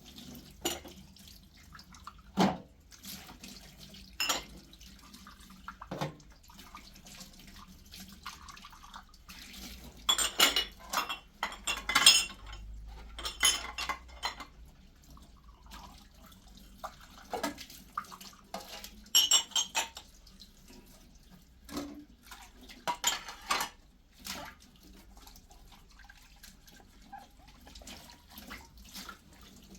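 Intermittent clinks and clatters of kitchenware being handled, coming in clusters of quick knocks.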